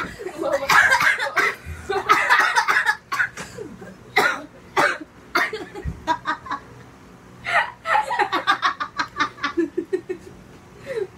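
Two young people laughing hard in repeated fits. About eight seconds in comes a run of quick laughing bursts.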